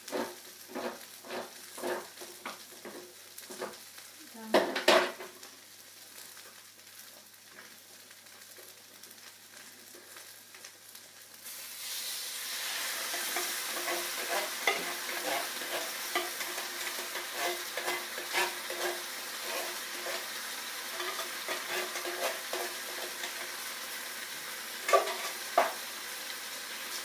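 Curry sauce of onions, garlic, curry paste and chopped tomatoes cooking in a frying pan while being stirred. First comes rhythmic scraping and knocking in the pan, about twice a second, with a loud knock or two; then, about twelve seconds in, a louder steady sizzle with crackles and stirring strokes sets in suddenly.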